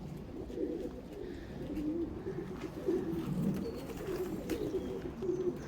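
Several young racing pigeons cooing together, a low, wavering, overlapping murmur of coos that never stops.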